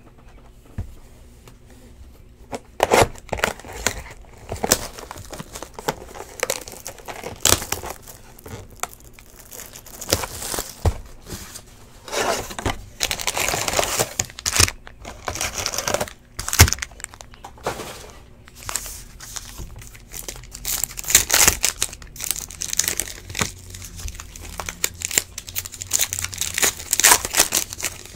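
Hands opening a cardboard box of trading-card packs and handling the wrapped packs: irregular crinkling, tearing and tapping, busiest a little before halfway and through the last third.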